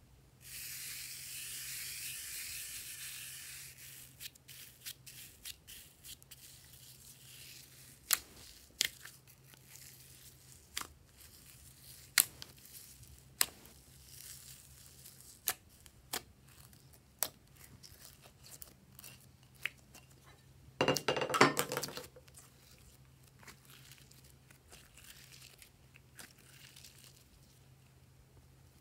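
Fine glitter hissing as it slides off a tilted dish for the first few seconds, then hands kneading and folding glossy slime: scattered sharp clicks and pops, with a short burst of crackling about 21 seconds in.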